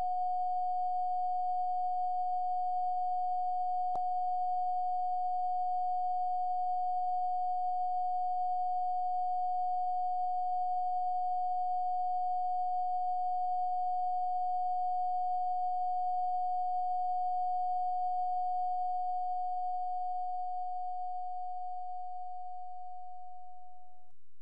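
A steady pure sine tone at about 729 Hz, holding one pitch. There is a single sharp click about four seconds in, and the tone fades out near the end.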